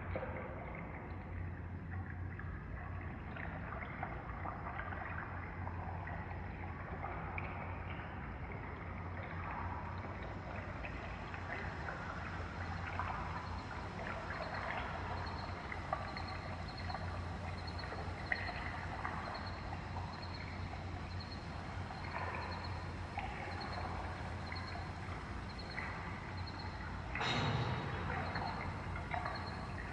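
River water flowing and babbling in a field recording, over a steady low hum, with a louder rush near the end.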